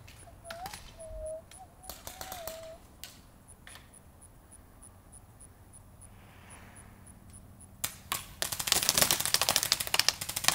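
Paintball markers firing. There are a few scattered shots at first, then rapid strings of shots from about eight seconds in.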